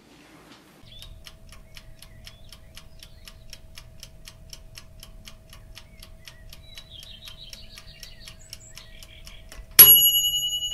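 Rapid, even clock-like ticking, used as an end-screen sound effect, over a faint steady tone. Near the end a sudden loud bell ding rings out and fades.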